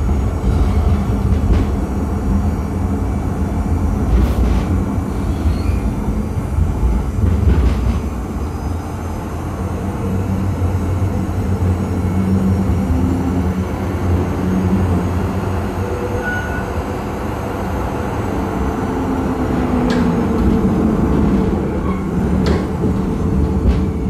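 Zurich tram running between stops, heard from inside the passenger cabin: a steady rumble of wheels and running gear with a humming drive that slides up and down in pitch. A few sharp clacks come from the track.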